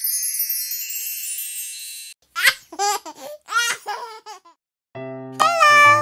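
A high twinkling chime effect, then a six-month-old baby boy laughing in four short giggles; cheerful children's music starts about five seconds in.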